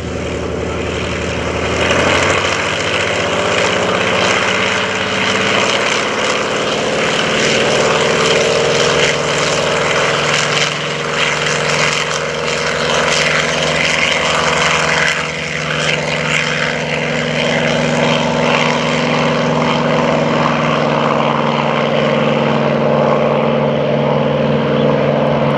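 Douglas A-1E Skyraider's Wright R-3350 18-cylinder radial engine at takeoff power, with propeller noise. It swells about two seconds in as the power comes up, then holds loud and steady, its pitch climbing slowly as the plane accelerates down the runway.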